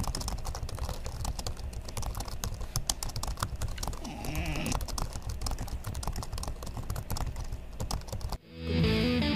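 Rapid, irregular clicking of typing on a computer keyboard, with a short yawn from a French bulldog, rising and falling in pitch, about four seconds in. Music starts near the end.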